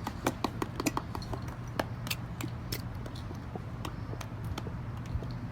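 A run of light clicks and taps, thickest in the first two seconds and sparser after, over a steady low hum.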